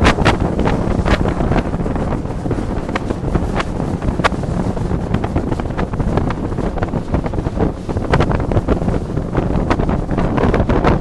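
Heavy wind buffeting the microphone on a fast boat racing along the river, with the boat's running noise beneath as a steady roar. Short sharp cracks come and go throughout.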